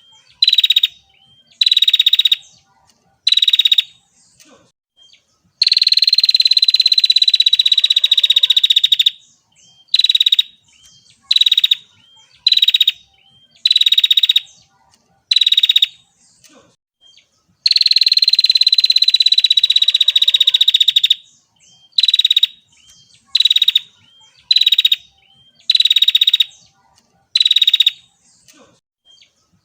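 Female prinia (prenjak) calling: a run of short, buzzy, rattling notes about a second apart. Twice the bird breaks into a long rattling trill of about three and a half seconds that sinks slightly in pitch.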